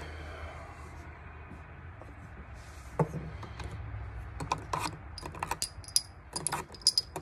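Brass .30-06 rifle cartridges clicking and clinking against one another and the bench as they are picked up and handled. A single click comes about 3 seconds in, and a run of scattered clinks starts about halfway through, over a low steady hum.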